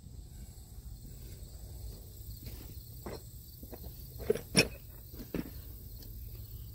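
Soft scuffing footsteps and a few light knocks over a faint steady background hum, with two sharper clicks close together near the middle.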